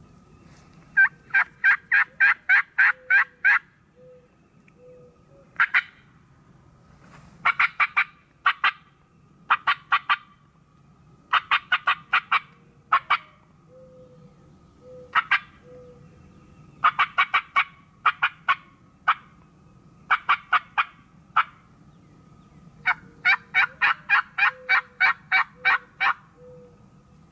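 Wild turkey yelping in runs of quick, evenly spaced notes, about four a second, with short pauses between runs. The longest runs come near the start and near the end.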